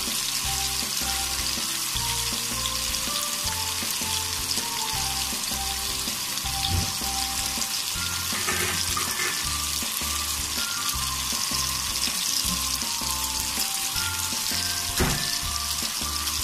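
Boneless chicken pieces sizzling steadily as they deep-fry in hot oil, over a background music tune. A single sharp click near the end.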